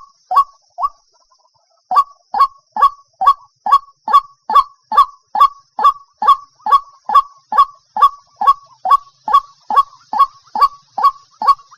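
White-breasted waterhen giving its monotonous repeated call: short notes, about two to three a second. The calling pauses for about a second near the start, then runs on at an even pace.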